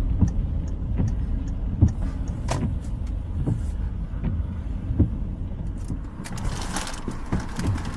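Low engine and road rumble inside a small car as it pulls in and stops, with scattered light clicks and knocks. About six seconds in, a steady hiss joins them.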